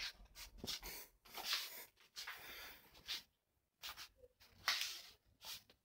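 Faint, irregular breathing and sniffing noises close to a microphone in a small room: a string of short, hissy breaths with brief pauses between them.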